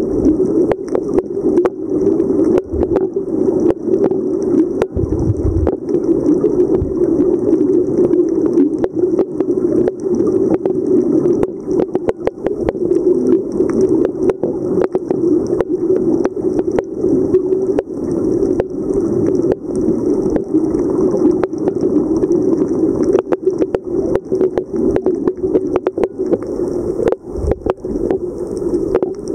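Underwater sound picked up by a submerged camera: a steady muffled rush of water with dense, irregular crackling clicks, and a couple of brief low thumps, about five seconds in and near the end.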